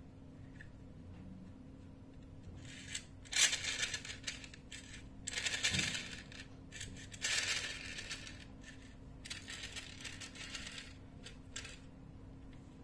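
Distant clattering and clinking as refuse is emptied from a crane-lifted underground dumpster container into a garbage truck, in a run of irregular bursts that start a few seconds in and are loudest around the middle, over a faint steady low hum.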